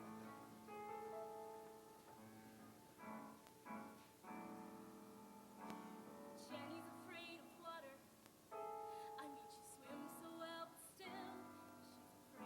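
Show choir singing a quiet passage over piano accompaniment: held chords and sustained vocal notes with vibrato.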